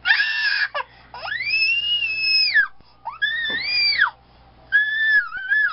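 A baby crying in high-pitched wails: four drawn-out cries, each rising and then falling in pitch, with short breaths between them.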